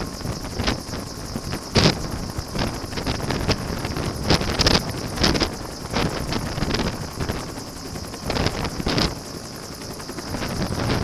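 Bell UH-1 "Huey" helicopter hovering overhead, its rotor downwash buffeting the microphone in irregular loud gusts over the engine and rotor noise, with a steady high whine throughout.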